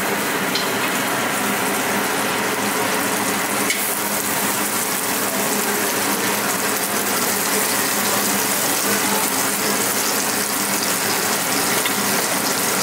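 Foie gras slices sizzling and crackling steadily in their own rendered fat in a hot stainless steel pan, with a low steady hum underneath.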